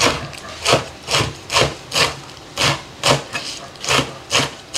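Steel cleaver chopping fresh culantro leaves on a wooden cutting board, in steady chops about two a second.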